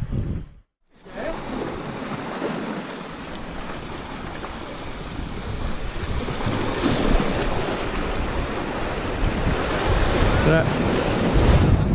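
Sea waves surging and washing over shoreline rocks, with wind rumbling on the microphone, growing louder towards the end. A brief dropout to silence comes just under a second in.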